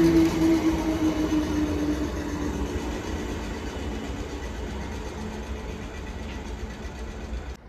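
Suburban electric multiple unit train running away on the tracks, wheel and track rumble with a motor whine that sinks slightly in pitch as it fades. The sound cuts off suddenly near the end.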